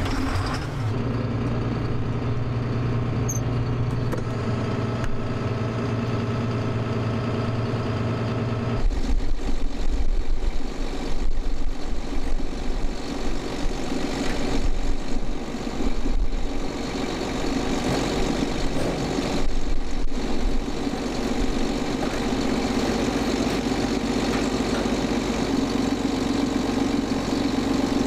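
Tractor engine running steadily. About nine seconds in the sound changes abruptly to a deeper, less even engine note whose loudness rises and falls.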